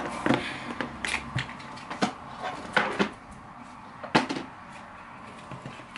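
Irregular clicks, taps and short rustling scrapes of small things being handled on a desk, with a few sharper knocks about a second, three seconds and four seconds in.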